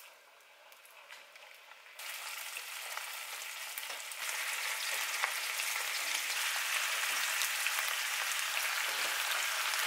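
Catfish steaks sizzling and crackling in hot cooking oil in a nonstick frying pan. The sizzle starts suddenly about two seconds in and grows louder about four seconds in as more steaks go into the pan.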